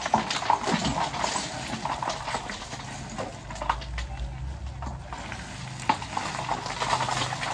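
Irregular clattering and knocking, with a heavy machine's engine running low underneath from about three and a half seconds in.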